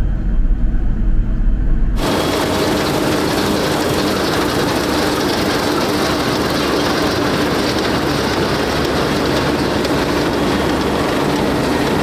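Nexat combine harvester cutting wheat. For about two seconds it is a deep low rumble heard inside the cab. Then it switches abruptly to the machine's loud, steady running noise heard from outside, close to the draper header, with a constant hum through it.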